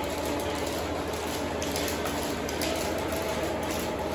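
Lionel toy trains and Carrera slot cars running on a layout: a steady mechanical rumble and whir with a faint, even hum.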